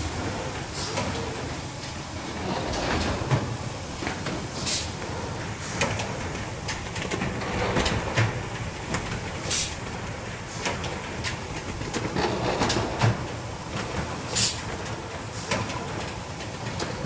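Automated sheet-conveying machine with pneumatic actuators running: steady mechanical clatter and clicking, with a short sharp hiss of air about every five seconds.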